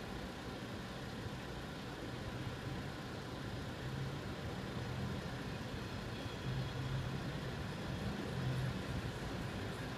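Diesel engines of parked coaches idling, a steady low drone that swells briefly a few times; the engines are left running while the coaches stand.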